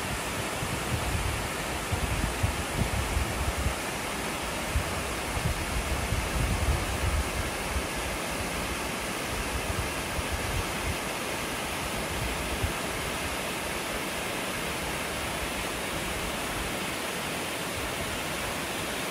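Mountain waterfall rushing steadily as it cascades down a rock face into a small pool.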